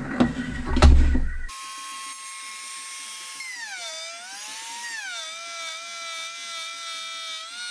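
A loud clatter of knocks in the first second or so, then a palm router (trim router) running with a steady high whine whose pitch drops and settles lower as the bit cuts into a small wooden strip.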